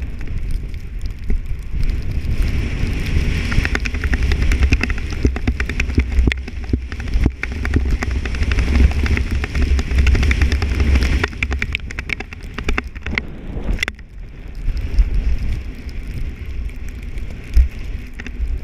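Wind buffeting a helmet camera's microphone on a fast downhill run, with the hiss and crackle of fresh powder snow under the rider's gear. The rumble and hiss ease for a moment partway through, and a single sharp knock sounds near the end.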